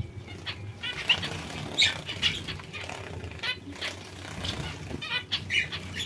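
Cage finches, zebra finches and a society finch, chirping with many short calls, some in quick runs of repeated notes, among light flutters and small knocks.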